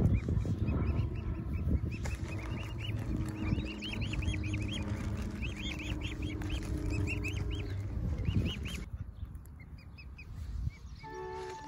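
Mute swan cygnets peeping: many short high chirps in quick succession over a low rumble, thinning out about nine seconds in. Music comes in near the end.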